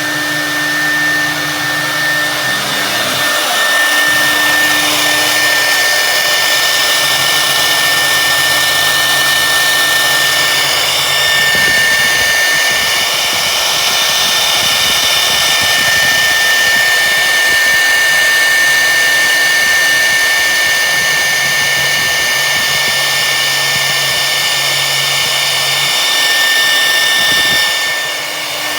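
CNC router running: a steady high whine over a loud, constant rush of noise. Lower motor tones step on, off and change pitch several times as the machine moves, and the sound eases slightly near the end.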